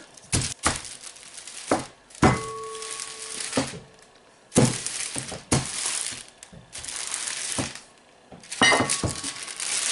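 Wax paper rustling and crinkling under handling, with sharp knocks of a marble rolling pin and utensils against a wooden table.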